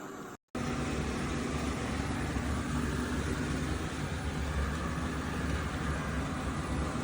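eufy RoboVac 11S MAX robot vacuum running with a steady whir and low hum of its suction fan and brushes, after a brief dropout to silence about half a second in.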